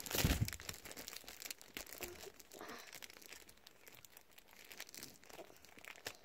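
Plastic packaging crinkling as it is handled, with a louder rustle and bump in the first half-second, then light intermittent crackling.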